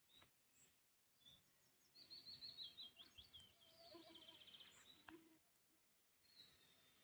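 Faint birdsong: a few single chirps, then from about two seconds in a run of quick chirps and a rapid trill lasting about three seconds.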